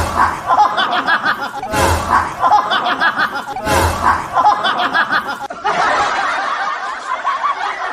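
People laughing: a dense run of snickering and chuckling, with three louder bursts about two seconds apart.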